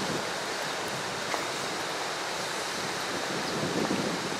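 Steady rush of a shallow rocky river flowing over stones and a small weir, an even noise with no break.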